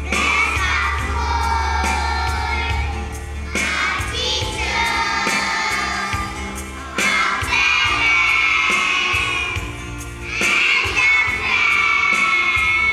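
A group of young boys singing together into stage microphones, in long sung phrases with short breaks every three to four seconds.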